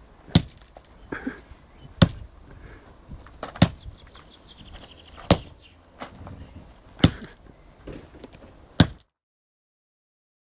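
Sledgehammer smashing a calculator on gravel ground: six heavy blows, about one every second and a half to two seconds.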